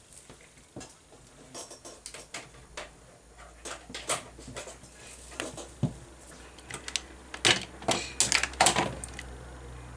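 Clicks and knocks of small plastic parts being handled as a power supply plug is pushed into the light strip's DC connector, with the loudest cluster of clicks near the end. A faint low hum starts about three seconds in.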